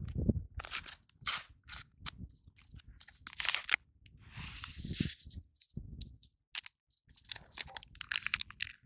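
Foil sachets of drink powder crinkling and crackling as they are handled and torn open, a string of short sharp crackles, with powder tipped into a steel cup of water.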